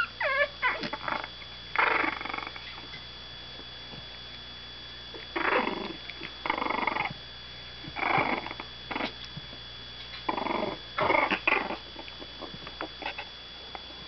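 Jack Russell–Shih-Tzu mix puppies play-growling at each other in short growls, about six of them, each about half a second long, with a brief high falling yelp at the very start.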